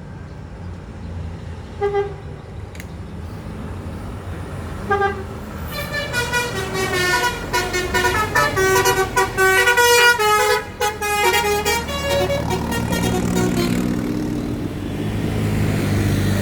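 Tourist bus's telolet horn: two short toots, then a quick melody of stepped horn notes lasting about six seconds. The bus's engine running grows louder near the end as it passes.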